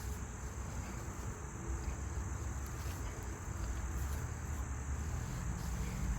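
Insects, crickets or similar, droning steadily at a high pitch, with a low rumble underneath.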